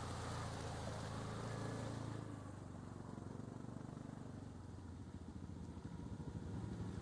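Yamaha Rhino side-by-side's engine running at low speed, with a broad hiss over it that drops away about two seconds in, leaving the engine's low, fast pulsing.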